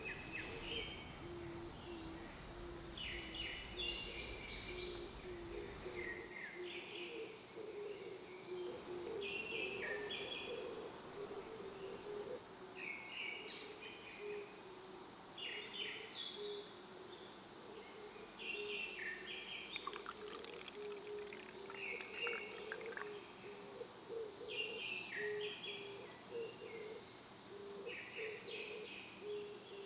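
Birds singing outdoors: short chirped phrases repeat every second or two, over a lower call repeated in quick succession. A low rumble stops about six seconds in.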